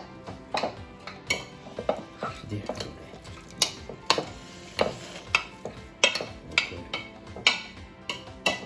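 A spoon stirring and scraping through seasoned vegetable slices in a plastic mixing bowl, with sharp clacks about twice a second. Soft background music plays underneath.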